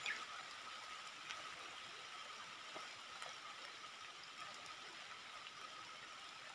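Faint steady outdoor ambience: an even hiss with a steady high drone, broken by a few faint ticks and a brief louder sound right at the start.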